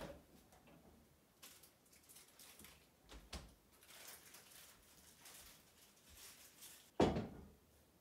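Kitchen handling sounds: a click as a refrigerator door is opened, soft rustling and movement, then one loud dull thump about seven seconds in.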